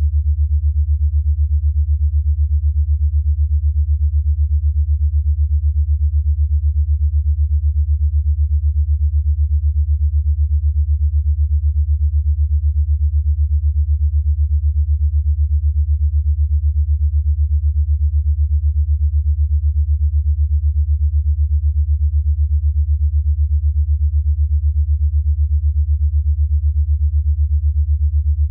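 A steady, deep electronic sine tone that pulses rapidly and evenly without change: an 8 Hz alpha-wave entrainment tone.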